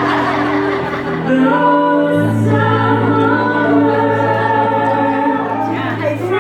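Music with a group of voices singing, holding long sustained notes together over a low held bass note.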